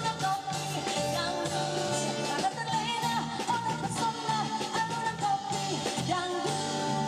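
A woman singing a dangdut song in a wavering, ornamented voice over dangdut backing music with a steady repeating bass beat.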